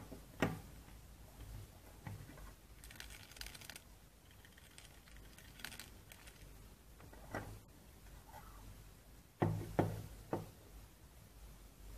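Handling noise from a PlayStation 1 controller and its coiled cable: scattered knocks and rustles of plastic on a wooden tabletop, with three louder knocks close together near the end.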